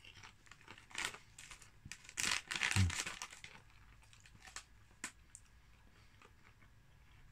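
Crisp packet crinkling and crisps being crunched while eaten, in a few short bursts, the busiest about two to three seconds in.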